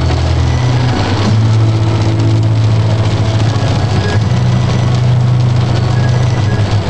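Truck engine running steadily while driving, heard from inside the cab as a low drone, with an even hiss of rain and tyres on the wet road.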